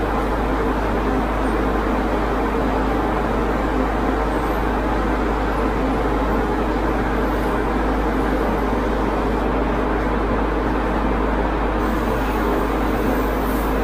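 Air compressor running with a steady hum, feeding an airbrush that hisses as it sprays solvent candy paint.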